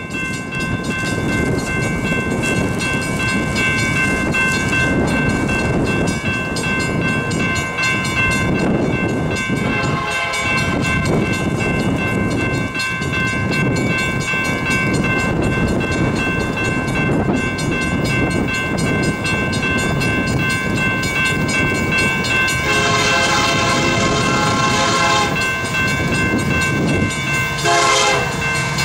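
Diesel locomotive air horn sounding a chord from an approaching Union Pacific freight train, faint at first, louder about ten seconds in, then a long blast and a short one near the end, the pattern of a grade-crossing signal. Strong wind buffets the microphone with a steady rumble throughout.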